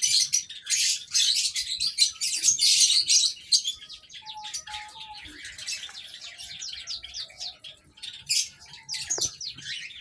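Many small birds chirping and twittering in quick, high-pitched notes, thickest in the first few seconds and thinning out after about four seconds.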